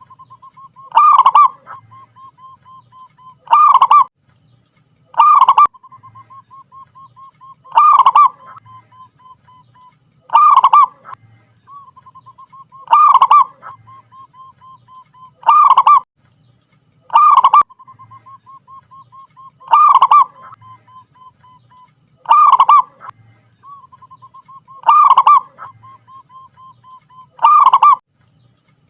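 Zebra dove (perkutut) cooing: a loud, short coo about every two and a half seconds, each followed by a soft, quick run of notes at the same pitch.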